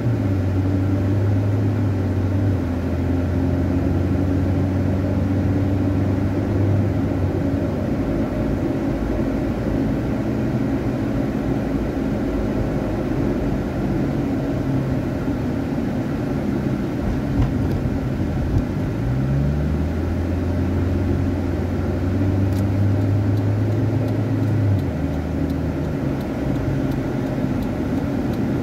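Car engine and road noise heard from inside the cabin while driving through city streets: a steady low engine hum, tyre and road rumble, and the engine note rising briefly about two-thirds of the way in before holding steady again.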